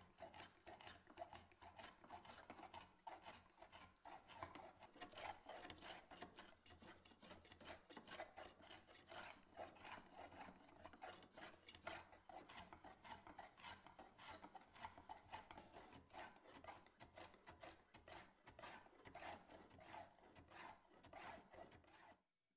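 Small hand plane cutting along the edge of a thin hardwood board in short, quick strokes, about two to three a second, each a scraping hiss of the blade through the wood. The strokes cut off suddenly right at the end.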